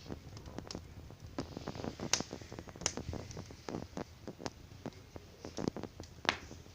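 Wood fire crackling, with irregular pops and snaps and a few sharper cracks.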